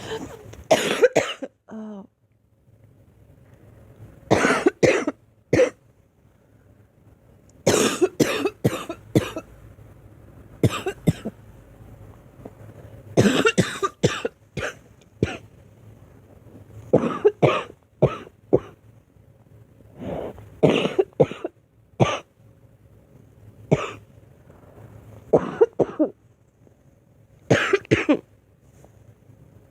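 A girl coughing in repeated fits: about ten bouts of two to four sharp coughs each, a second or two apart.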